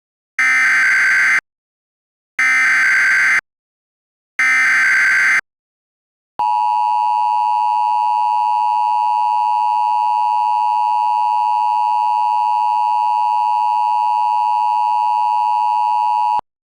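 Emergency Alert System alert opening: three one-second bursts of warbling SAME data header tones, then the long, steady EAS attention tone, held for about ten seconds and cut off sharply.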